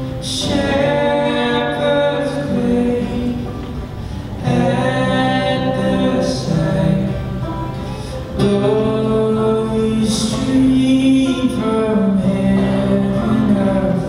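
Male voices singing a slow melody of long held notes, in phrases of about four seconds, to acoustic guitar and banjo accompaniment.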